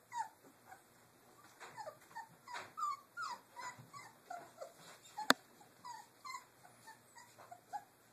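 Three-week-old Doberman puppies whimpering and squeaking: a rapid string of short, high squeals, each falling in pitch. A single sharp click, the loudest sound, comes about five seconds in.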